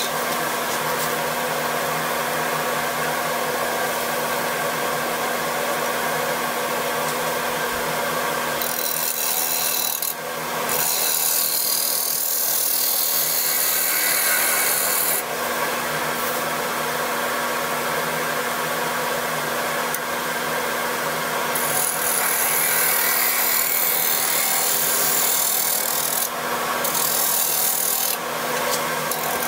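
Gouge cutting the outside of a spinning Siberian elm bowl on a wood lathe: a steady cutting sound over the lathe's motor hum, broken by a few brief pauses as the tool comes off the wood, about ten seconds in and twice near the end.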